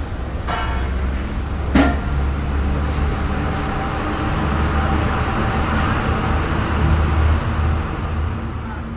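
Low, steady rumble of distant road traffic, with a hiss that swells in the middle and fades toward the end. A single sharp knock sounds about two seconds in.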